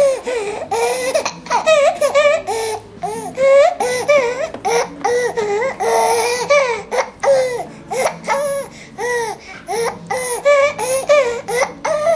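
A baby laughing hysterically in short, high-pitched squealing bursts, one after another with brief catches of breath between.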